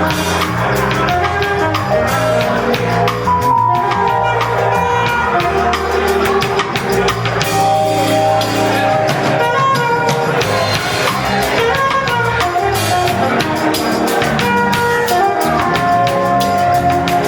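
Live band playing: drum kit, bass and sustained melody notes over a steady beat, with some singing.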